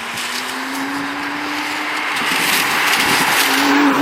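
BMW F82 M4's twin-turbo straight-six under way, a faint engine note rising slowly in pitch beneath loud road and wind noise that builds toward the end.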